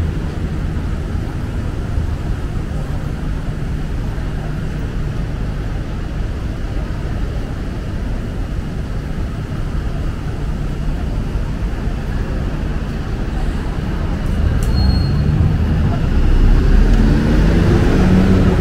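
Steady traffic noise of a city street. About fourteen seconds in, a heavy vehicle's engine grows louder and rises in pitch as it accelerates.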